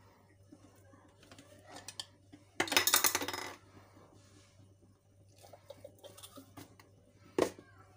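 Food processor's plastic bowl and blade being handled: a clattering rattle lasting about a second. It is followed by light scraping and a single sharp knock near the end as the minced chicken is tipped out into a plastic bowl.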